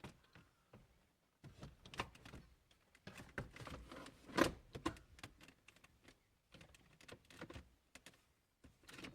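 Car centre-console trim being handled and fitted back around the gear shifter: a string of irregular clicks, knocks and rustles, the loudest knock a little before halfway through.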